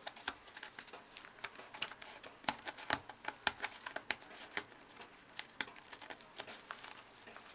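Fabric bag being handled: irregular rustling with light clicks and taps, thickest about halfway through.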